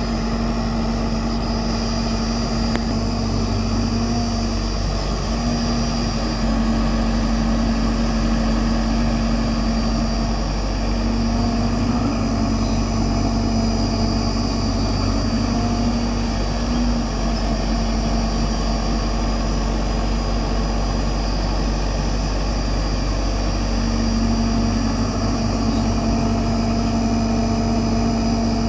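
Hyundai 215L crawler excavator's diesel engine running steadily as the machine digs and lifts soil, a continuous drone that swells and eases a little now and then.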